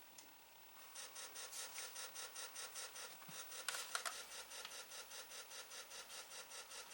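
Atari SF354 floppy disk drive running on its replacement belt, making a rhythmic rasping noise at about six pulses a second, with a couple of louder clicks near the middle.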